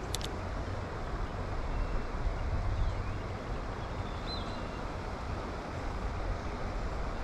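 Steady low rumbling background noise with no clear source, with two quick sharp clicks right at the start and a brief faint high chirp a little past the middle.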